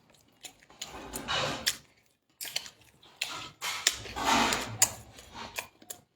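Close-up eating sounds: irregular chewing and mouth noises with sharp clicks, in uneven bursts broken by short pauses.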